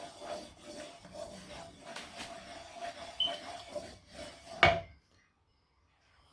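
Cooking utensil scraping and rubbing in a pan in a run of short strokes, while oil is added, with one sharp knock about four and a half seconds in; then the sound cuts off.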